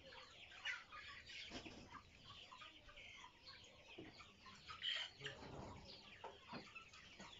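A flock of tiger chickens clucking and chirping softly, with scattered short calls.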